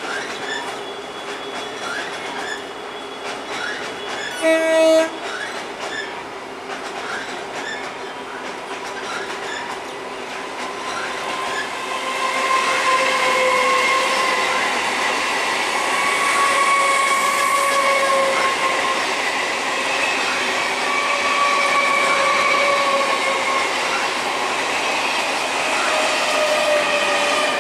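Container freight train running over a steel truss bridge, its wagons clicking over the rail joints at a steady rhythm. A short train horn blast sounds about four and a half seconds in. From about twelve seconds an EMU local train runs past close by, louder, with wavering wheel squeal.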